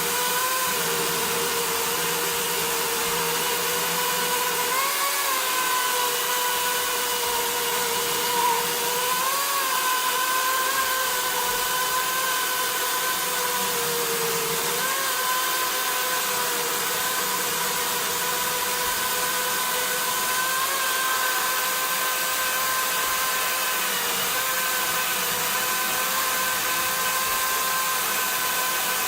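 Zomax ZMDC501 cordless lithium-battery chainsaw running: a steady electric whine of motor and chain, over a hiss, its pitch wavering briefly a few times.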